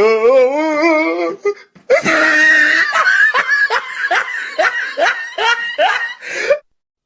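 A person's exaggerated laughter used as a meme sound effect: a wavering, warbling laugh at first, then after a short break a long rhythmic run of 'ha' bursts, about two or three a second.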